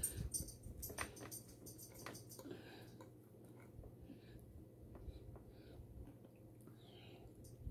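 A metal fork clinking and scraping against a plate, with a run of sharp ringing clicks in the first two seconds or so. After that come sparser, fainter clicks and soft chewing.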